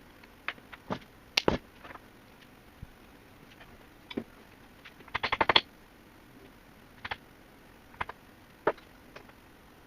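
Scattered sharp clicks and knocks of hands working on a key-cutting machine and its small metal parts, with a quick run of about seven clicks about five seconds in.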